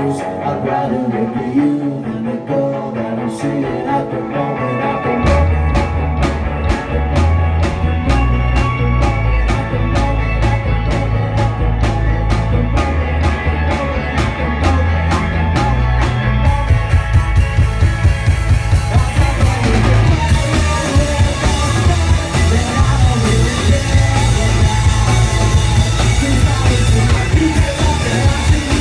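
Live punk-rock band playing an instrumental passage. A steady ticking beat keeps time, heavy low notes come in about five seconds in, and the full band with crashing cymbals builds up from about sixteen seconds in.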